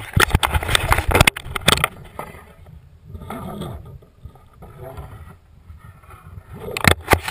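Sharp knocks and rubbing from the action camera being handled and swung, then quieter water sloshing and splashing against a kayak's plastic hull while a small tarpon is held alongside. A few more sharp knocks come near the end.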